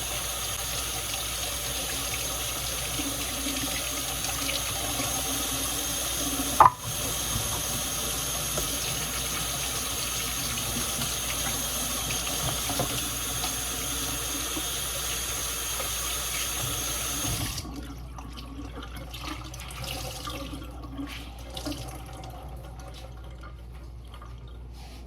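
Kitchen tap running into a sink as asparagus is rinsed under it, a steady rush of water with one sharp knock about a quarter of the way in. The water shuts off about two-thirds through, leaving faint handling knocks.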